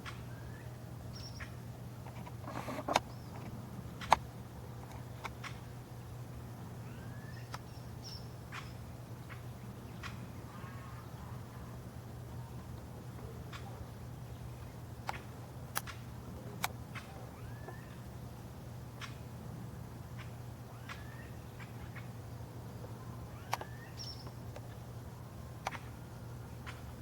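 Crimson-crested woodpecker knocking on wood, sharp single taps at irregular intervals, a couple of them louder about three and four seconds in. Short rising bird chirps come in between, over a steady low hum.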